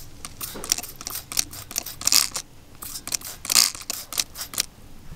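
Hand trigger spray bottle of soapy water squeezed over and over, a quick run of short spritzing hisses, a few of them longer, onto a propane tank's valve fittings to check for gas leaks. The spraying stops shortly before the end.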